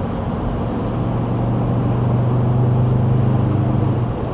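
Ford Ranger's 3.2-litre five-cylinder turbodiesel heard from inside the cab, pulling at full throttle in fourth gear: a steady drone over road noise that grows a little louder about a second in. The engine is near 3,000 rpm, where it turns sluggish and will not rev further.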